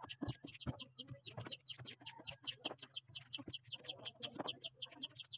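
Small knife cutting yardlong beans held in the hand, a series of irregular short crisp clicks. Birds chirp rapidly and steadily in the background, about four to five chirps a second.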